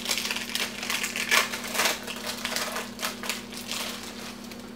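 Plastic wrappers of individually wrapped American cheese slices crinkling and rustling as they are handled and peeled off, in quick irregular crackles that thin out near the end.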